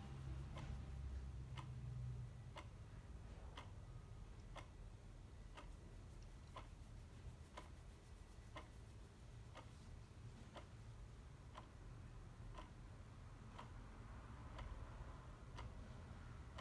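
Clock ticking steadily, about one tick a second, faint over a low background rumble.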